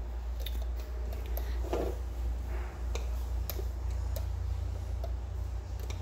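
Irregular small clicks and taps of a plastic hook and rubber bands against the plastic pegs of a band loom as the bands are hooked and pulled over, heard over a steady low hum.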